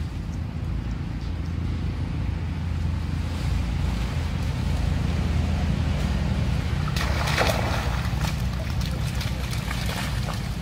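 Steady low wind rumble on the microphone, with a burst of splashing and scuffling from macaques running through a muddy puddle about seven seconds in.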